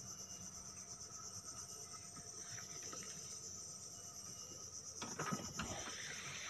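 Faint steady high-pitched chirring of insects, with a few short knocks and rustles about five seconds in.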